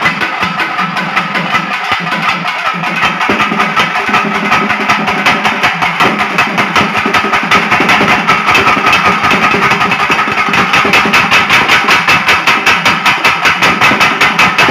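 A folk drum ensemble of barrel drums and a pair of small stick-beaten drums playing a fast, even rhythm that grows louder and denser about ten seconds in. A steady droning tone runs under the beating.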